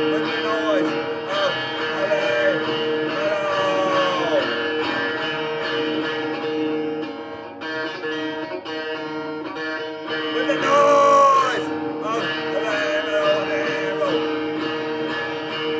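Music: a guitar playing a lead line of bending, gliding notes over a held chord, swelling louder for a moment about eleven seconds in.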